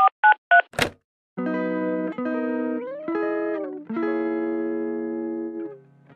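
Intro jingle: three quick two-tone beeps and a short swish, then a run of held chords with sliding pitch bends between them, ending on one long chord that fades out.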